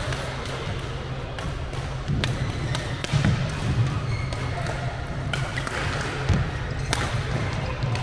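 Badminton rally on an indoor court: sharp clicks of rackets striking the shuttlecock, scattered irregularly, with players' footsteps thudding on the court floor, over a steady low hum.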